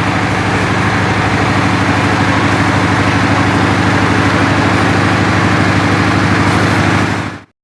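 A heavy vehicle engine idling steadily with an even low throb. It cuts off abruptly near the end.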